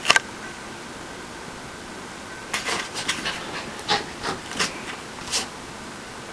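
Small dog snorting in short, sharp huffs. There is one at the very start, then a quick run of about eight from about two and a half seconds in until just past the five-second mark: confused snorting at a new toy.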